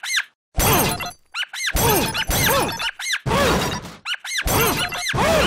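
Cartoon sound effects of a big mallet repeatedly smashing a whack-a-mole arcade machine to pieces. Heavy crashing, breaking blows come about once a second, each with a quick rising-and-falling tone.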